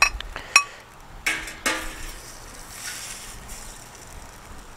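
Metal turner scraping scrambled eggs across a stainless steel Drip 'N Griddle pan and onto a ceramic plate. Two sharp clinks come in the first second, then two scrapes about a second and a half in.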